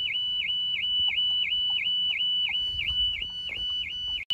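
Car alarm sounding: a loud warbling tone that dips and rises about three times a second, with a split-second gap near the end. It was set off by accident from the key fob in a pocket.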